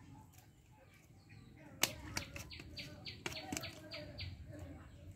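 Blade cutting a tilapia: one sharp click, then a quick run of about seven short strokes, roughly three a second.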